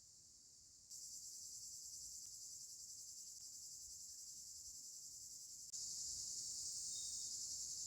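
A steady, high-pitched chorus of insects, shrilling without a break. It jumps louder suddenly about a second in and again near six seconds.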